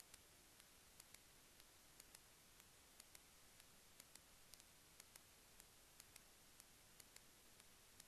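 Near silence: a faint hiss with soft, evenly paced ticks, a couple each second.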